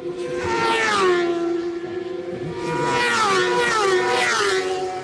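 Racing superbikes passing close by at speed, each engine note dropping in pitch as the bike goes past: one pass about a second in, then two more around three and four seconds in.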